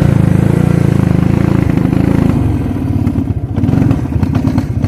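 Suzuki King Quad ATV engine running while riding, the throttle eased off about halfway through so the engine note drops and softens before picking up again at the end.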